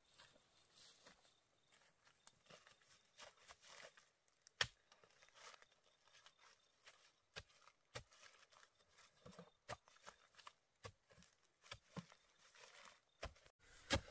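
Near silence broken by faint, irregular clicks and knocks, with one sharper knock about four and a half seconds in.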